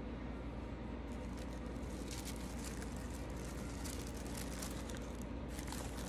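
Tissue paper rustling and crinkling in bursts as it is lifted and folded back inside a gift box, starting about a second in, over a steady low hum.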